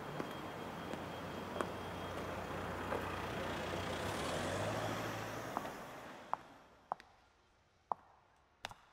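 Street traffic: a passing vehicle's engine and road noise swells, then fades away over the second half, with a few short sharp clicks.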